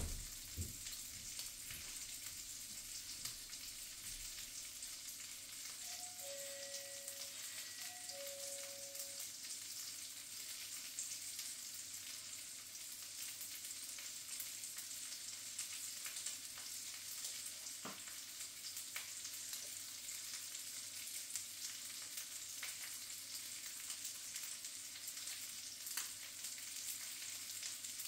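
Sausages sizzling in bacon fat in a frying pan: a steady, quiet frying hiss. A short two-note tone sounds twice, about six and eight seconds in.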